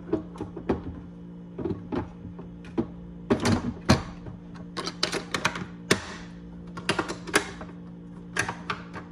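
Irregular sharp plastic clicks and knocks as the lid of a Bissell carpet cleaner's water tank is pressed down and its side latch is snapped shut, some of the clicks coming in quick clusters.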